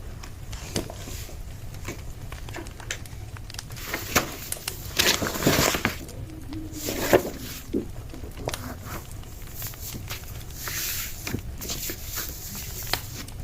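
Scattered light clicks and rustling over a low steady hum, with a longer rustle about five seconds in: everyday household sounds.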